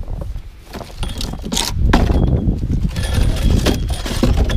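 Crunching footsteps in deep snow and the clatter and rustle of snow tools being handled, with irregular knocks and a low rumble on the microphone.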